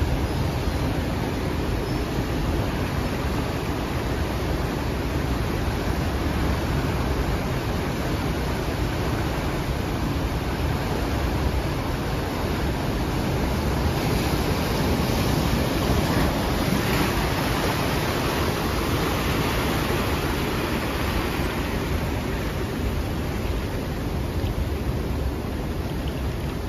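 Ocean surf washing in over shoreline rocks: a steady rush of breaking and swirling seawater that swells a little about halfway through.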